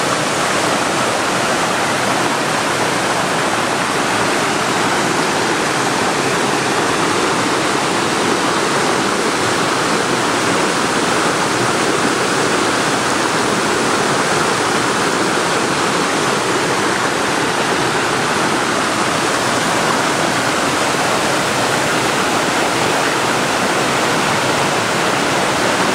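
Waterfall pouring steadily: a loud, even rush of falling water with no change in level.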